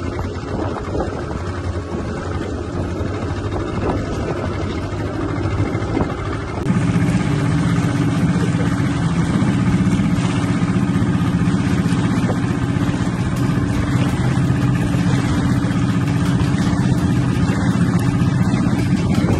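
Outboard motor of an inflatable rescue boat running under way, with wind and water noise. About a third of the way in, the engine becomes louder and takes on a steady hum.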